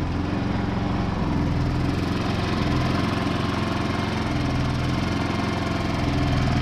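Predator 3500 inverter generator's single-cylinder four-stroke engine running steadily at its low eco-throttle idle.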